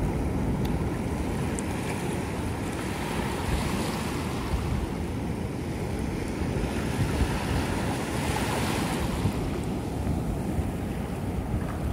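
Ocean surf breaking and washing up the beach in a steady rush, with wind rumbling on the microphone. One wave washes up more brightly about eight seconds in.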